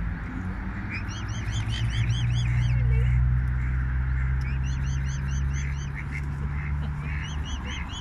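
Birds calling on a pond: several runs of rapid, high, repeated chirps, over a low steady hum that starts about a second in and stops near the end.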